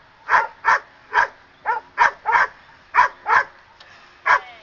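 Standard poodle barking repeatedly at a helper with a bite pad during protection training: about nine sharp barks, roughly two a second.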